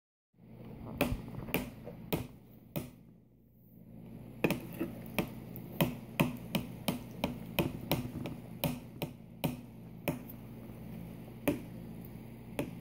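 Metal fork tines clicking and tapping against a plate as food is speared, in irregular sharp taps about two a second, with a short pause about three seconds in. A steady low hum runs underneath.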